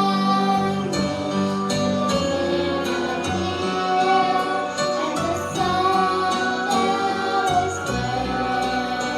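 A song: a singing voice holding long notes over instrumental accompaniment with plucked strings.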